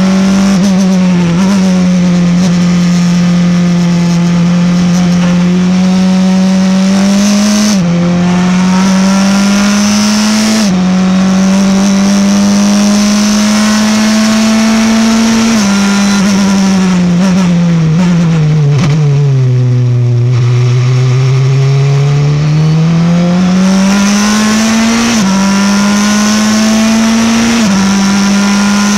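Wolf GB08 sports prototype race car engine heard onboard at full racing speed. It climbs in pitch through each gear and drops sharply at a run of upshifts, sinks in one long fall as the car slows for a corner about two thirds of the way through, then climbs again with two more upshifts near the end.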